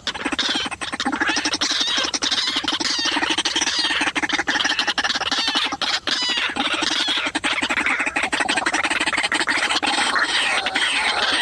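White-breasted waterhen calling: a long run of fast repeated croaking squawks.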